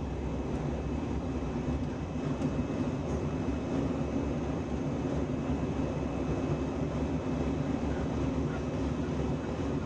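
Steady cabin noise of an Airbus A319 climbing after take-off: the deep, even rumble of the engines and airflow heard from a window seat over the wing, with a faint steady high whine over it.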